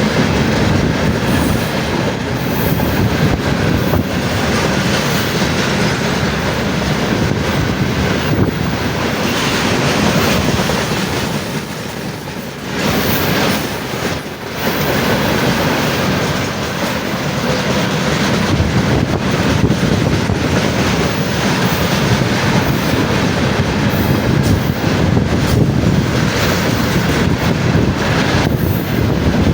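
A train passing close by at speed, its wheels running loudly over the rails in a steady rush of noise that dips briefly about twelve seconds in before picking up again.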